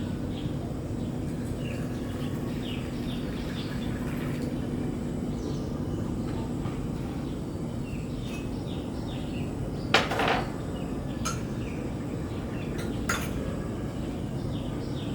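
Small birds chirping in short falling notes over a steady low rumble, with a sharp clink of crockery about ten seconds in and two lighter clicks after it.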